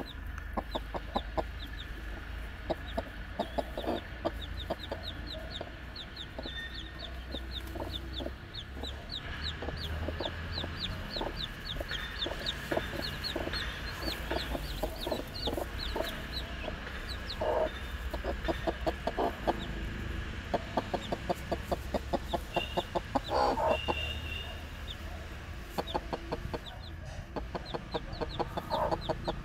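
Broody hen clucking in low, rapid runs every few seconds, while newly hatched chicks peep high and fast throughout.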